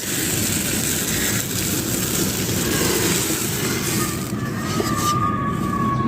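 Sand-cement chunks being crushed and crumbled, a continuous dense crunching and gritty crackle.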